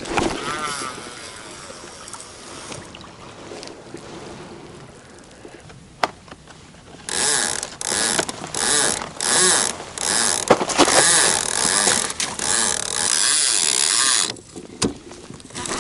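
Catfish rod and baitcasting reel being handled at a kayak's rod holders, with one sharp click about six seconds in. Rough rustling bursts of handling and wind noise on the microphone fill the second half, loudest part of the stretch.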